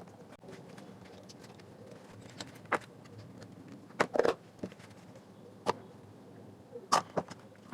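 Scattered clicks and light knocks from handling the parts of a disassembled JBL Go Bluetooth speaker, with the sharpest taps about four seconds and seven seconds in.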